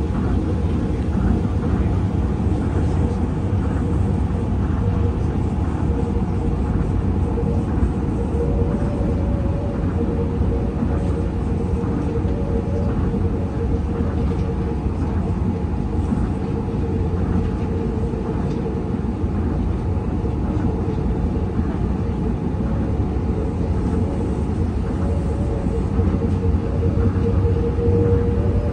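Tokyo Monorail car running at speed, heard from inside the cabin: a steady low rumble with a constant mid-pitched hum.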